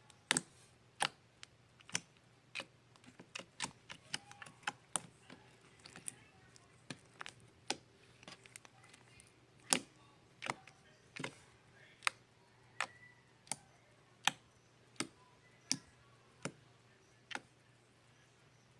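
Slime being squished and poked, making a series of sharp clicks and pops, close together and irregular at first, then about one every three-quarters of a second.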